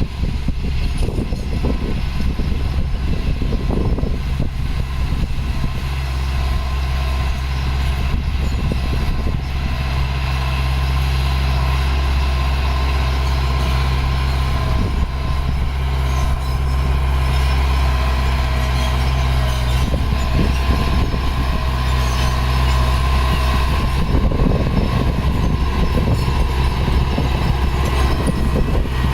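Heavy diesel engine of earthmoving equipment, a bulldozer or dump truck, running steadily with a deep, even hum.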